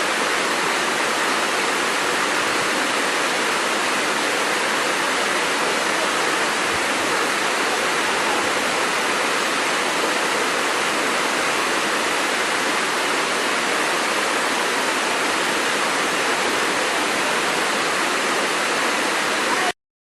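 Waterfall: a steady, even rush of falling water that cuts off abruptly near the end.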